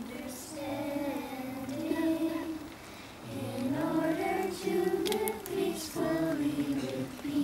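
Children singing a song together in held notes, with a short break between phrases about halfway through.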